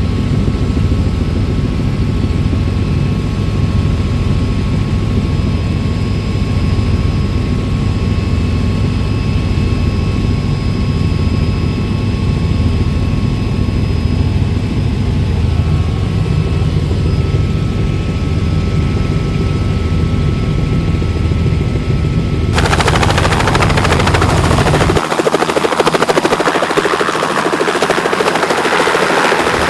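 Helicopter running: a low, rapid rotor beat under a steady turbine whine. About 23 seconds in, the sound changes abruptly to a brighter, hissing rush, and the low beat drops out soon after.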